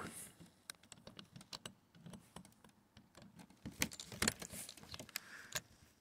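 Faint, irregular small clicks and scrapes of a metal screwdriver tip working a screw out of a brass doorknob's rose plate, a little louder in the second half.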